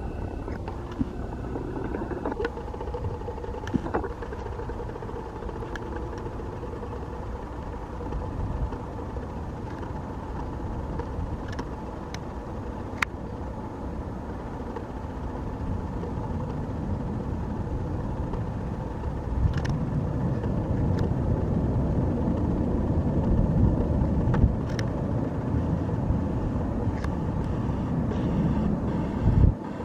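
Distant fighter jet engine noise, a steady low rumble that grows louder about two-thirds of the way through, with a few sharp clicks.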